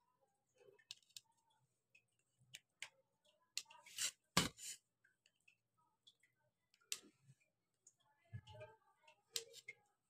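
Knife blade cutting through a set gram-flour (besan) mixture in a steel plate, clicking and scraping against the metal in short, faint strokes, the loudest about four seconds in.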